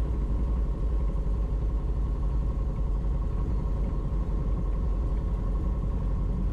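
Piper Twin Comanche PA-30B's two four-cylinder Lycoming engines and propellers running steadily while the aircraft taxis, a low droning rumble heard from inside the cabin.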